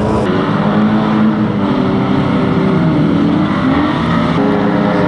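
Engines of several old banger-racing cars revving and running together, their pitch rising and falling as the drivers work the throttle.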